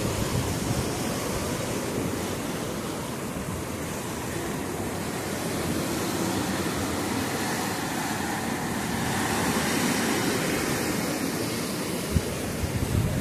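Black Sea surf breaking and washing against a concrete jetty and rocks: a steady rushing wash of foaming waves that swells slightly about ten seconds in.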